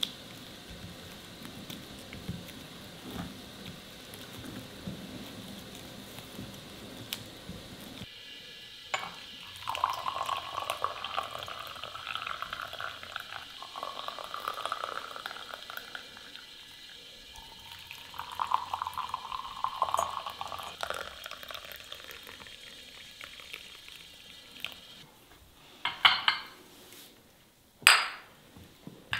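After a faint steady hiss, liquid is poured into a vessel in several pours, each rising in pitch as the vessel fills. Two sharp clinks follow near the end.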